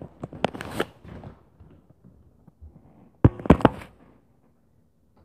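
A run of short knocks and thumps, then a quick cluster of four loud bangs about three seconds in, after which it goes quiet.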